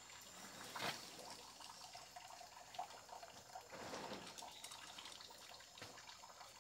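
Faint water sounds, dripping and trickling, with a thin steady high-pitched tone and a few soft clicks and rushes.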